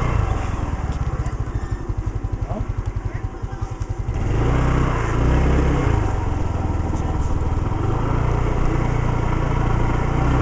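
Mondial 100 cc single-cylinder motorcycle engine heard from the rider's seat, pulsing at low revs, then running louder and steadier from about four seconds in as the bike picks up speed.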